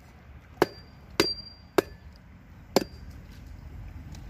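Long-bladed knife chopping into a large sailfish on a wooden board: four sharp chops about half a second to a second apart, some with a brief metallic ring from the blade.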